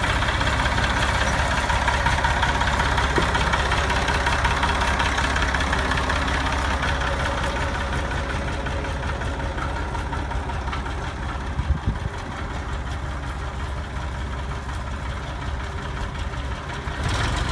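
An engine running steadily with a low rumble, with a couple of short knocks about two-thirds of the way through.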